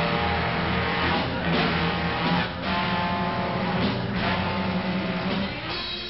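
Background rock music led by a strummed guitar, with a steady beat.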